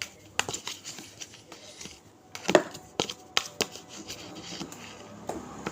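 A spoon stirring a thick slime mixture of clay, water and soap in a container: irregular clicks and knocks of the spoon against the container, a few louder ones about halfway through.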